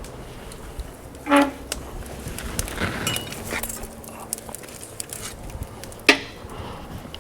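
Clanks of steel being handled: forged steel handles and tools knocking together, two sharper strikes ringing briefly, with lighter rattling between.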